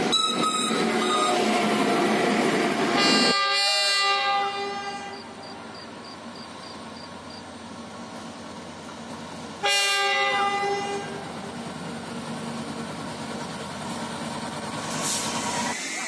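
Loud steady rumble for about three seconds that cuts off abruptly. Then two blasts of a Tunisian railways locomotive horn, about six seconds apart, each about a second and a half long and wavering in pitch as it begins.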